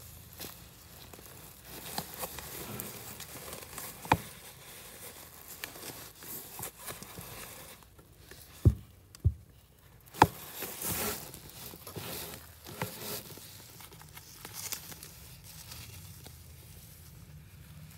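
Woven plastic sack crinkling and rustling as newborn kittens squirm on it and a hand handles them, with scattered small taps. Three sharp knocks come a little past the middle.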